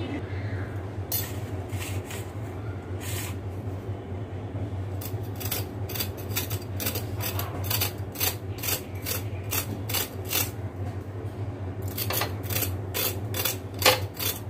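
Kitchen knife scraping the bumpy skin off a bitter gourd (karela) in short rasping strokes, a few at first, then a quick run of about two to three a second from about five seconds in, over a steady low hum.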